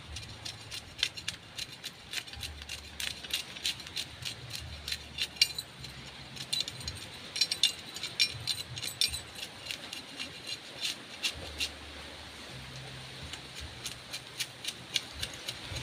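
Knife blade scraping along a large barracuda's skin, a crackle of quick sharp clicks in runs of strokes as the scales are scraped off.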